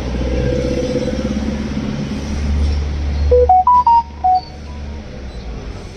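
A low rumble that fades out, then a short electronic start-up tune of five quick beeps rising and falling in pitch, typical of a handheld diagnostic scan tool powering up.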